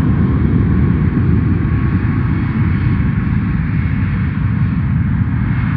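Twin-engine jet airliner's engines at takeoff thrust during the takeoff roll: a loud, steady low rumble with a faint whine held above it.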